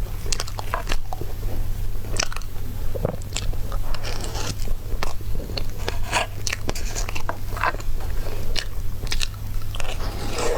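Close-up eating sounds: someone biting and chewing a dessert, with irregular wet clicks and small crunches, over a steady low hum.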